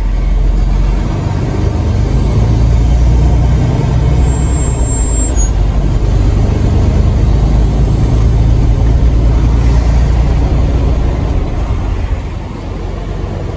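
Semi-truck's diesel engine pulling under throttle, heard from inside the cab: a loud, deep, steady drone that eases off near the end.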